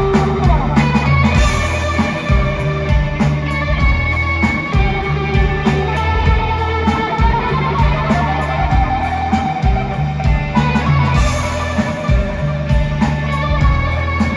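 Live rock band playing: electric guitar over bass and a steady drum beat, with a guitar line that bends in pitch.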